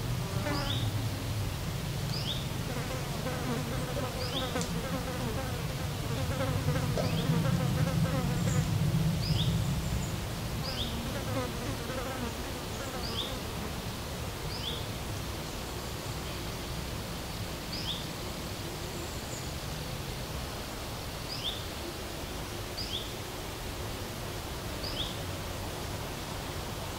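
A flying insect buzzing near the microphone, its pitch wavering as it moves; it is loudest up to about ten seconds in, then fades away. Throughout, a bird repeats a short, high, falling chirp every second or two over a soft outdoor hiss.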